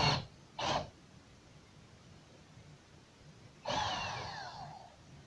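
A cordless drill-driver turning a thread tap into metal makes one short run about two-thirds of the way in, its motor whine falling in pitch as it slows. A breath is heard near the start.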